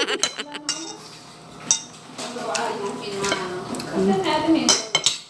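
Metal fork clinking against a plate during eating, a few sharp clinks near the start, about 1.7 s in and near the end.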